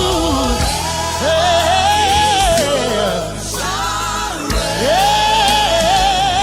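Gospel worship song: a lead voice singing long, sliding, held notes over a band with a steady bass.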